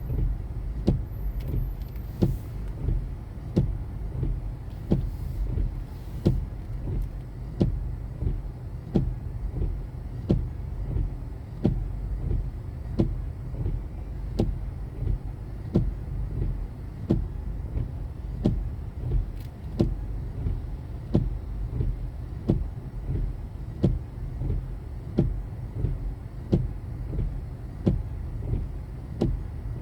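Car driving, with a steady low rumble of engine and road noise and a sharp, regular click about every 0.7 seconds throughout.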